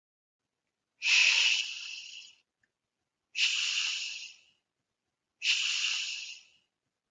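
A voice saying the 'sh' sound three times, each a drawn-out hiss of about a second, the sound that CH makes in words like chef and machine.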